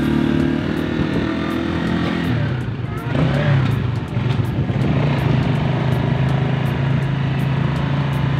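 Motorcycle engine running on the move, with wind and road noise. The engine note drops about two seconds in, then holds steady.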